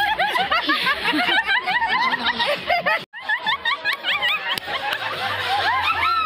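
Crowd laughing and shouting, many voices over one another, with a sudden break about three seconds in.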